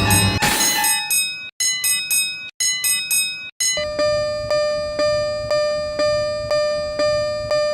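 Japanese level crossing warning bells ringing in their kan-kan pattern. First come short bursts of higher dings in several pitches, cut off by brief silences; then from about four seconds in, one steady ding about twice a second.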